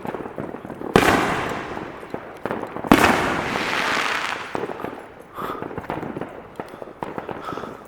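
Fireworks going off: two loud bangs about two seconds apart, the second trailing off in a long crackle, with scattered small pops throughout.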